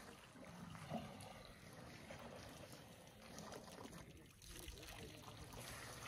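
Quiet outdoor ambience: faint wind on the microphone and soft water sounds from the waterhole, with one brief soft knock about a second in.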